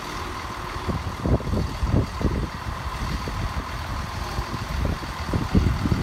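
Diesel multiple-unit trains running at a station platform: a steady idling engine hum with a low rumble, broken by irregular low thumps.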